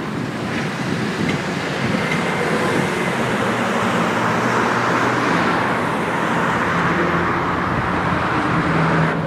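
Military aircraft engines running, a loud steady rush with a low hum underneath that swells a little in the middle.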